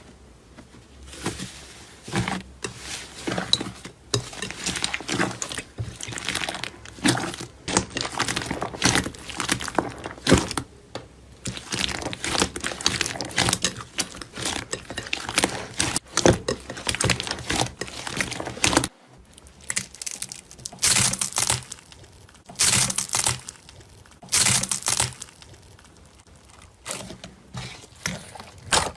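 Slime being squished and poked by hand, giving a dense run of crackling, popping clicks with a short break about two-thirds of the way through.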